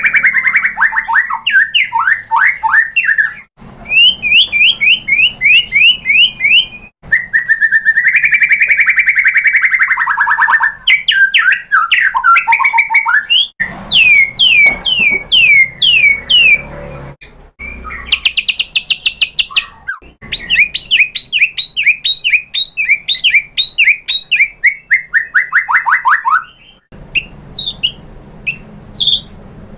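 White-rumped shama singing a loud, varied song: fast runs of short repeated sweeping notes, held buzzy phrases and high trills. The song breaks off abruptly several times and starts again at once.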